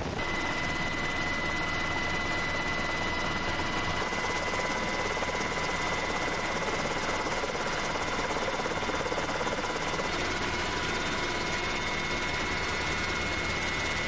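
Steady helicopter engine and rotor noise with a high turbine whine, heard from the aircraft.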